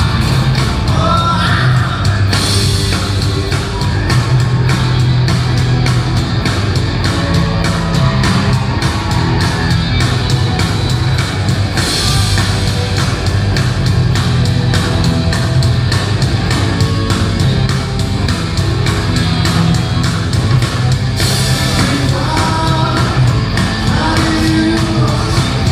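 Live rock band playing loud, with two drum kits keeping a steady beat under electric guitars and bass. A lead voice sings at the start and again about twenty-two seconds in.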